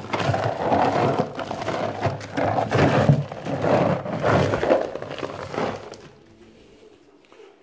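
Dry rodent food pellets clattering and crunching as a plastic scoop is dug into a woven sack of pellets and lifted out full, the sack rustling with it; the clatter dies away about six seconds in.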